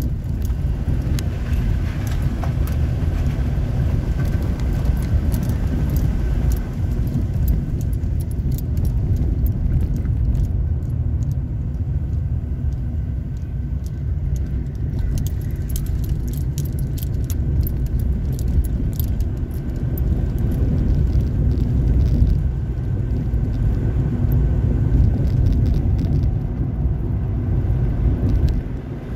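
Car driving, heard from inside the cabin: a steady low rumble of engine and tyres on the road, with scattered light clicks and rattles.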